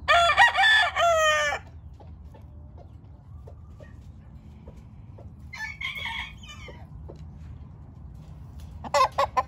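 Game roosters calling: a loud crow at the start lasting about a second and a half, a fainter crow about six seconds in, then a quick run of short loud clucks near the end.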